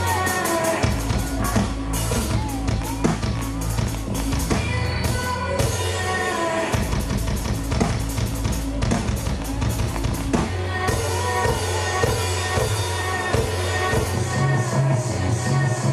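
Background music with a steady drum beat, bass line and melody.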